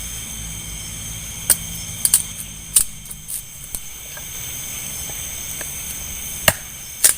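Steady high-pitched insect chirring with a low background hum, broken by several sharp clicks, the loudest about a second and a half in, near the three-second mark, and twice near the end.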